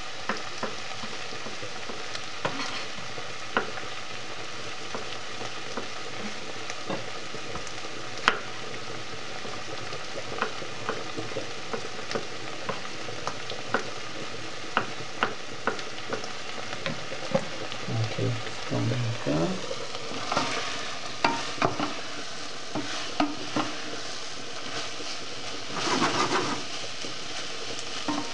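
Vegetables and chicken sizzling in a pot, with irregular sharp taps of a knife cutting tomatoes on a plastic cutting board. Near the end a louder scraping of a wooden spoon stirring the pot.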